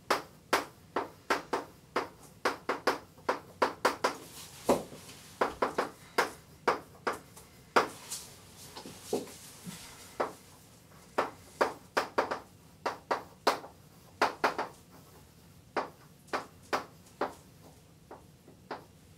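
Chalk tapping and scratching on a blackboard as a sentence is written out: quick, irregular clicks, several a second, in clusters with short gaps between words.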